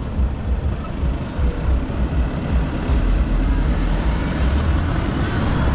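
City road traffic with a double-decker bus's engine just ahead, heard as a steady, low, uneven rumble.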